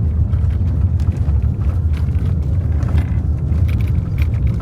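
Steady low rumble of a car in motion: road and engine noise with a few light rattles.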